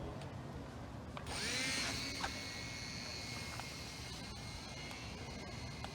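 Small electric motor and propeller of a cheap foam RC plane spinning up a little over a second in, then running with a steady high whine.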